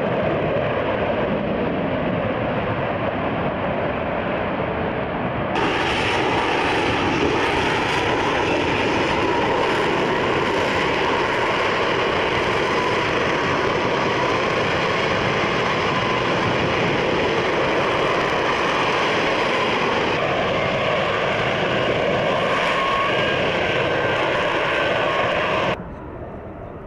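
Aircraft engines running loud and steady, a dense roar with a faint steady whine in it. The sound changes abruptly about five seconds in and again near the end, as if cut between clips, and drops away sharply just before the end.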